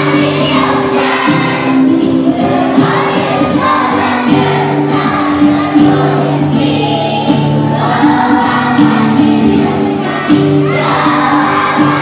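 Children's choir singing in unison over an instrumental accompaniment with a steady beat.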